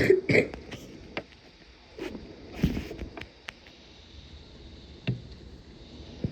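Steady hiss of wind and sideways-driven rain from a severe windstorm, heard from inside a house, with scattered sharp knocks and taps and a brief voice sound at the very start.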